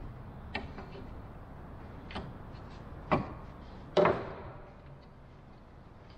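Wooden rudder frame and loose spruce strips knocking against a plywood workbench as they are handled and shifted. There are about five knocks; the two loudest come near three and four seconds in, and the last rings on briefly.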